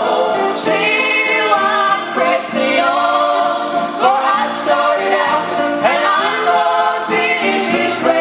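Gospel vocal group singing a song in harmony.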